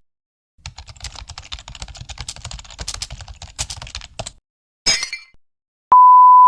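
Computer keyboard typing: a fast clatter of key clicks for about four seconds, then a short sharp burst. Near the end comes a steady single-pitch beep, the loudest sound here, like a censor bleep.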